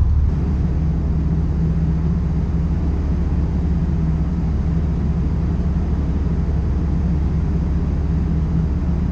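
Honda Super Cub running steadily at cruising speed, with a low engine drone and a rush of wind noise over it.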